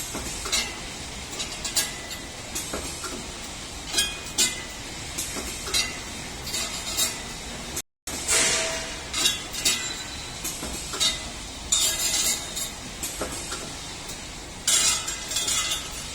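3D CNC wire bending machine at work: irregular metallic clicks and clinks from the bending head and wire over a steady hiss, cutting out for an instant about eight seconds in.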